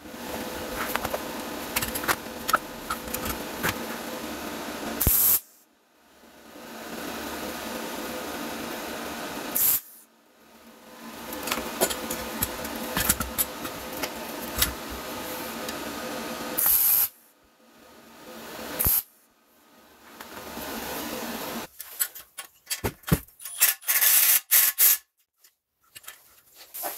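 MIG welder arc crackling and hissing in several runs of a few seconds each, stopping and restarting, as a new bolt is welded onto a rusted, seized bolt stub on a diesel EGR cooler. Near the end come a burst of irregular sharp clicks and knocks.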